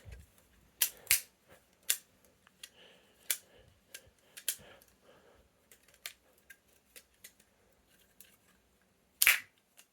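Plastic clicks and clacks from a Lego balisong being flipped, its Lego handles and blade snapping against each other at the pivots in irregular bursts, with a few long pauses.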